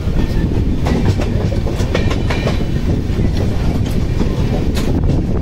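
Passenger coach of the Jan Shatabdi Express running along the track: a loud, steady rumble with the sharp clack of wheels over rail joints several times.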